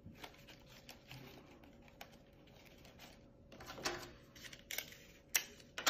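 Paper rustling and crinkling as a rolled paper lantern is handled and taped together, with scattered light clicks. Two sharp snaps come near the end.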